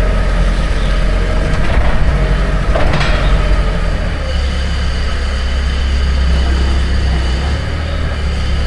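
Forklift engine running steadily under load. There is a sharp clank about three seconds in, and the engine's low note shifts about a second later.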